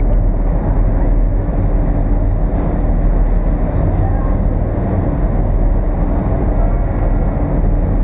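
Ferry's engine running steadily under way, a continuous low rumble with a steady hum.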